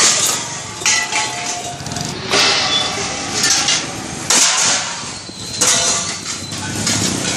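Street traffic, with motor scooters and an auto-rickshaw passing close. It is broken by about five sudden, loud crackling hisses, roughly a second or so apart.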